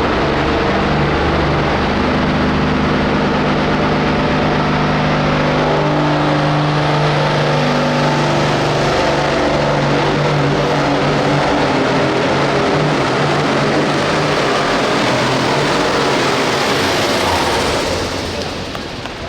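Hot farm class pulling tractor's diesel engine running flat out under load on a pull, a loud, steady drone whose pitch slowly sags. It drops away near the end.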